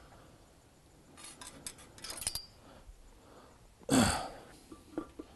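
Light metal clicks and clinks as a pipe lineup clamp's nut is locked and the fitting is handled, followed about four seconds in by a short, loud rush of breath, then a couple more small clinks.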